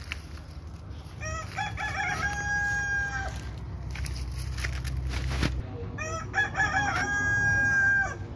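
A rooster crowing twice, about five seconds apart, each crow a few short notes running into one long held note, over a low steady rumble that stops about halfway through.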